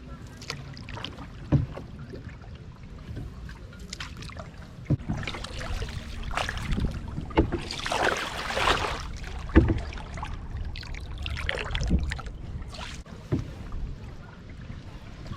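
Canadian canoe being paddled: the paddle swishing and splashing through the water in strokes every couple of seconds, with an occasional sharp knock.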